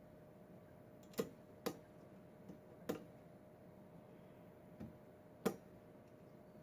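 Irregular sharp metallic clicks from a lock pick and tension wrench working the pins of a Schlage pin-tumbler lock: four louder clicks and two fainter ones, spaced unevenly.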